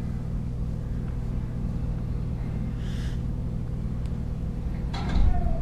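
Domestic cat purring steadily as a low, continuous rumble while being stroked, with a brief louder sound about five seconds in.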